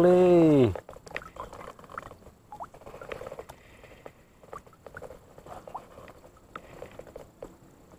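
A man's drawn-out, wavering voiced sound that cuts off under a second in. After it come only faint scattered clicks and light patter of small waves lapping at the waterline.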